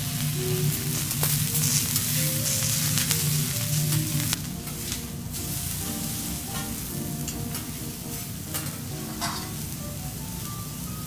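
Assorted vegetables sizzling on a teppanyaki griddle, with sharp clicks of the metal spatulas against the plate. The sizzle grows quieter about four seconds in.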